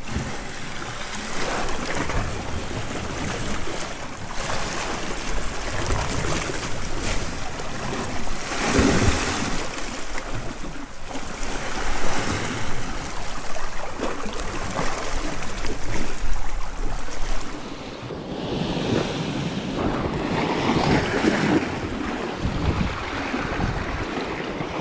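Sea swell surging and washing against shoreline rocks, with wind buffeting the microphone; the wash swells and falls in several surges.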